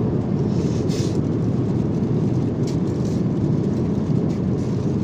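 Steady low cabin noise of a jet airliner in cruise flight: engines and rushing air, even and unbroken.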